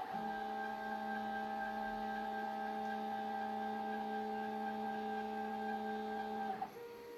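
Stepper motors of a CNC writing machine whining at one steady, multi-toned pitch, then stopping about six and a half seconds in.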